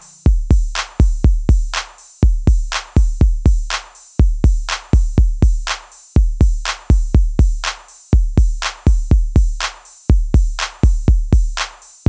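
Background electronic music: a drum-machine beat of deep kick drums and sharp, clicky hits, repeating in short groups about every two seconds, with no melody.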